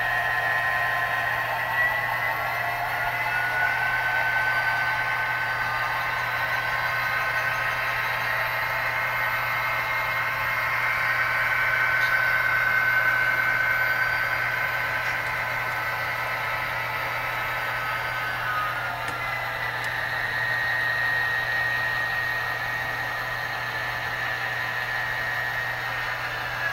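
HO scale model freight train running: the locomotives' digital sound decoders play diesel engine sound through their small speakers while the model freight cars roll along the track. The sound is steady, with several held tones.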